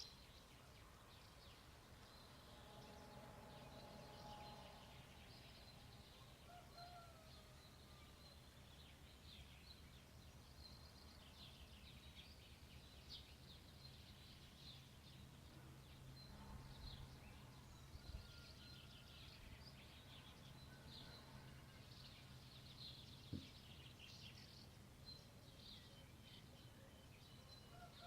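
Faint dawn chorus of small birds, many short high chirps throughout, over a low steady hum.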